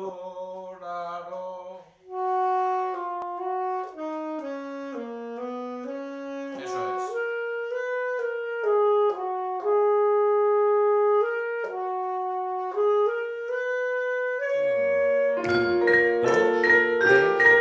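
A saxophone and a trombone playing a slow duet in long held notes, the trombone's lower line moving under the saxophone. About fifteen seconds in, mallet percussion (vibraphone and marimba) joins with quick struck notes that ring on.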